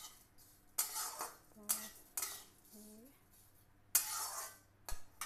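A metal spatula scrapes and stirs dry vermicelli roasting in ghee in a metal kadhai. There are several separate scraping strokes, the longest about four seconds in.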